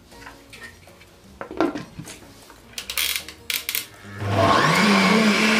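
A few clicks and knocks as the lid is fitted onto a glass-jug countertop blender. About four seconds in, the blender's motor starts, rises in pitch as it spins up, then runs steadily, blending cubed raw potatoes with water.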